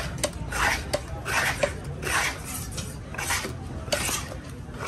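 A knife blade scraped in repeated strokes across the top of a wooden log chopping block, clearing it of fish scraps. Each stroke is a rasping scrape, about one a second.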